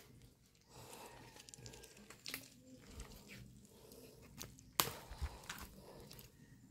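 Faint footsteps of rubber flip-flops on wet mud and shell grit, with scattered soft ticks and rustles and one sharper click about five seconds in.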